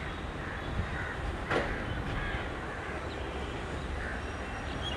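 Crows cawing now and then, several short calls, over a low steady rumble, with one sharp click about a second and a half in.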